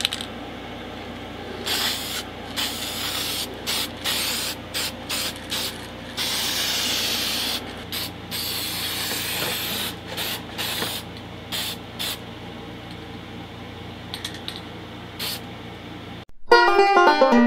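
Vinyl sanding sealer sprayed onto a banjo neck in a run of short hissing bursts, with one longer burst of about two seconds around six seconds in. Plucked banjo music comes in near the end.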